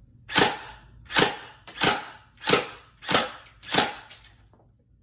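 Electric AK-47 airsoft rifle (GameFace Battlemaster AEG) firing on semi-auto: six single shots in a steady, evenly spaced series, about one every two-thirds of a second.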